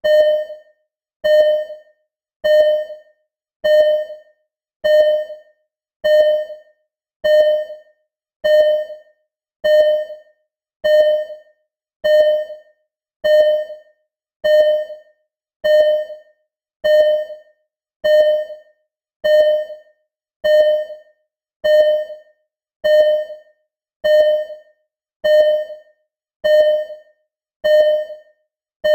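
Simulated hospital heart monitor (ECG) beeping: a short, single-pitched electronic beep repeating steadily a little less than once a second, each one decaying quickly.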